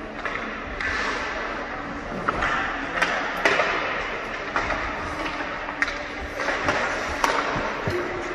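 Ice skate blades scraping and carving on rink ice, with several sharp clacks of hockey sticks and pucks on the ice, echoing in the arena.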